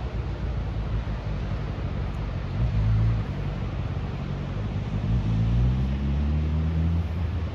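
A car's engine and running noise, a steady low rumble, with the engine's pitch rising from about five seconds in as it speeds up.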